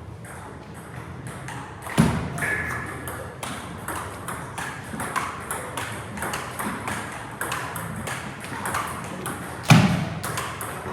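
Table tennis balls clicking against paddles and tables in quick, irregular succession, with two louder thuds, one about two seconds in and one near the end.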